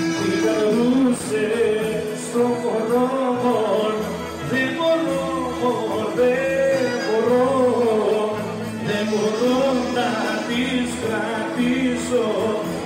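Greek folk dance music with a male voice singing wavering, ornamented lines over a steady held note.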